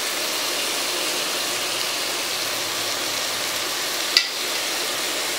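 Mushrooms, onion and tomato sizzling in ghee in an open pressure cooker: a steady frying hiss, with one short knock about four seconds in.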